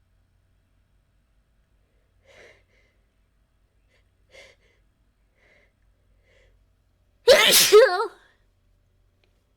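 A woman sneezes once, loudly and voiced, about seven seconds in, after two faint short breaths earlier on.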